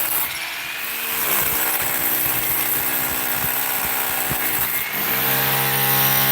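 A power tool running steadily. Its motor pitch sags and comes back up twice, shortly after the start and again near the five-second mark, with scattered knocks throughout.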